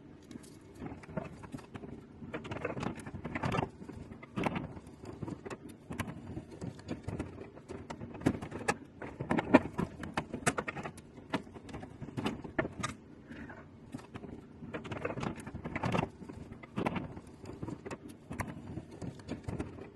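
Irregular clicks, small knocks and rustling as the plastic plug-in terminal connectors and wires of a CO2 laser cutter's controller wiring are handled and pulled about.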